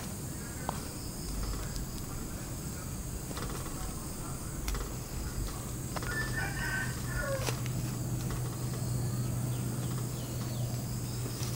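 Soft rustling and patting of hands pressing flour onto pork pieces in a steel bowl, with a few faint clicks. A bird calls in short notes about six seconds in, and a steady low hum joins from then on.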